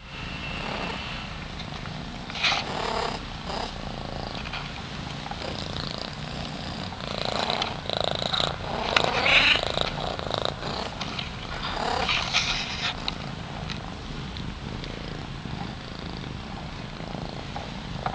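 Thai cats purring steadily, a low continuous rumble. A few louder, noisier sounds break in around 2, 8 to 10, and 12 seconds in.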